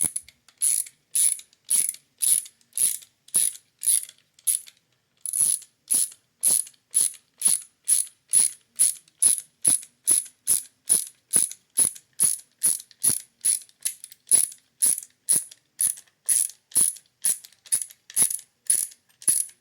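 Klein stubby ratcheting nut driver ratcheting in reverse, loosening a fastener: rapid pawl clicks on each back-swing, about two strokes a second, with one short pause about five seconds in.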